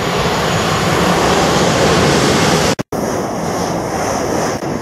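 A loud, steady rushing noise that cuts off abruptly about three seconds in, followed by a London Midland Class 350 electric multiple unit running past close by at speed, a rushing rumble with a high steady hiss.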